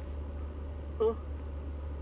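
Steady low hum of a car's engine heard inside the cabin, with one short wavering moan of "oh" about a second in.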